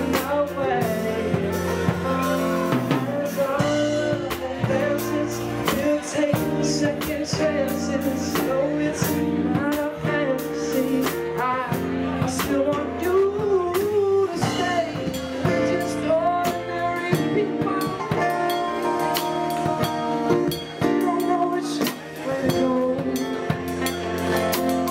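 Live band playing a song: drum kit with cymbal and snare hits, electric bass, and a singing voice carrying the melody.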